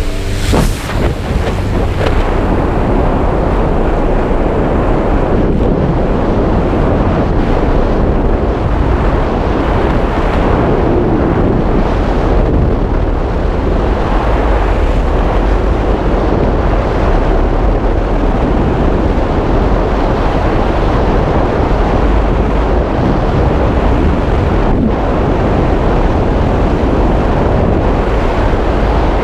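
Heavy wind buffeting the microphone over a steady low rumble.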